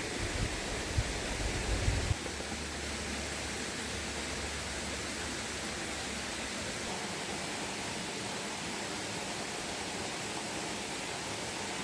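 River water rushing steadily. Low rumbling thumps in the first two seconds stop suddenly.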